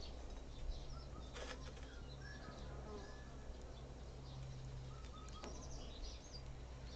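Low outdoor ambience: small birds chirping now and then over a steady low hum, with a couple of faint crackles from the burning paper noodle cup.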